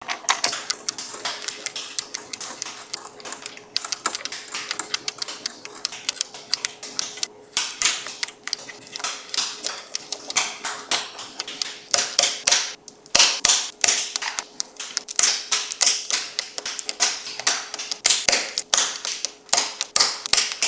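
LEOBOG Hi75 mechanical keyboard being typed on: a continuous run of quick keystroke clacks that grows denser and louder about halfway through, over a faint steady hum.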